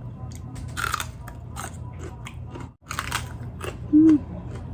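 Close-up biting and chewing of a large raw chili pepper, with crisp crunches about a second in and again at about three seconds. Near the end there is a short hummed "mm" of approval.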